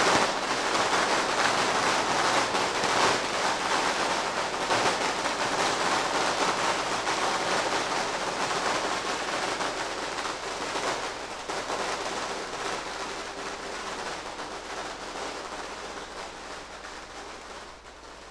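A long string of firecrackers going off in a dense, rapid crackle that slowly dies away toward the end.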